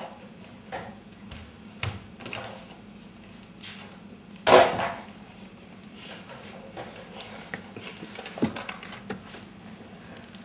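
Scattered knocks and thuds of a barefoot performer moving about on a stage floor, with one much louder thump about four and a half seconds in. A steady low hum runs underneath.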